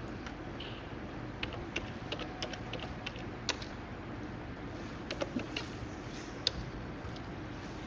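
Computer keyboard typing: scattered, irregular keystrokes, some louder than others, over a steady background hum.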